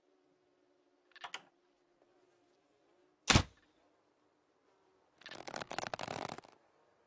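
Improvised crossbow sound effect: a short double click about a second in, then a single sharp, loud snap like a shot being released, and near the end about a second and a half of dense rattling clicks.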